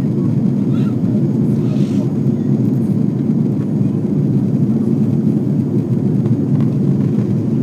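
Airbus A330 cabin noise in flight, heard from a window seat by the wing: a steady, even drone of engines and airflow.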